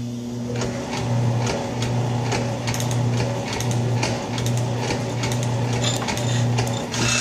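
Atlas metal shaper running, its ram stroking back and forth as the tool planes the cast box bed. The motor hum swells and dips about once a second with each stroke, with scattered clicks.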